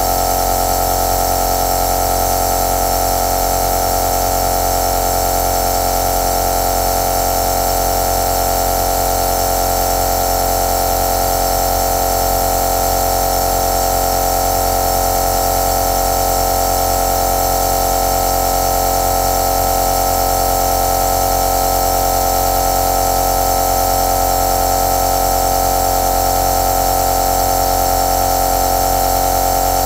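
Compressor nebulizer running steadily: an even, unchanging electric buzz with a strong steady hum and a hiss of air.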